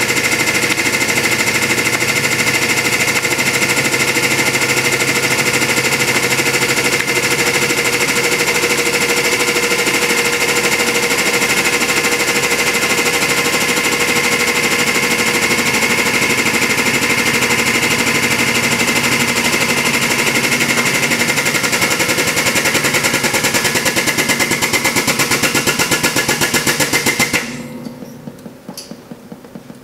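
Hydraulic press pump running with a fast, even pulsing while the ram crushes apples. The pulsing grows more distinct, then the pump stops suddenly near the end, leaving a couple of faint clicks.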